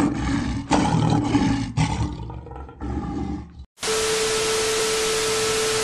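A rough roar in several pulses that cuts off about three and a half seconds in. After a brief silence comes loud, even TV-static hiss with a single steady tone running under it.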